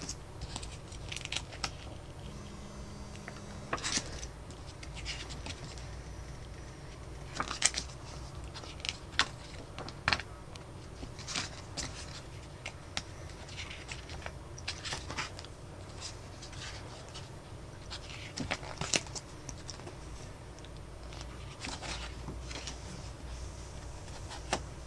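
Glossy photobook pages being handled and turned: irregular short, crisp paper rustles and flips, over a low steady background rumble.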